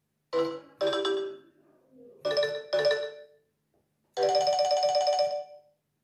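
Nokia 6300 mobile phone playing a built-in electronic tone through its loudspeaker. Two pairs of chiming notes are followed about four seconds in by a rapid trill held for about a second and a half.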